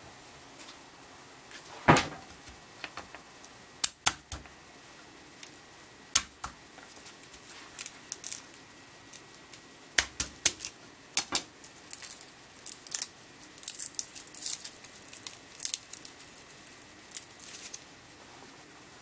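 Handling a garlic clove at the kitchen counter: a few separate sharp clicks and knocks, then a busier stretch of crackly rustling in the second half as the clove's papery skin is peeled off.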